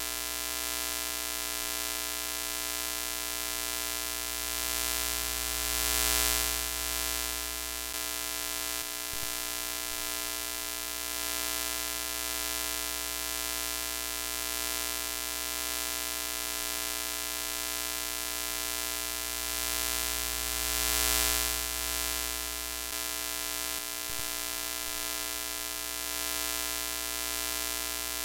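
TV static sound effect: a steady white-noise hiss over an electrical buzz. It swells louder twice, about 6 seconds in and again about 21 seconds in.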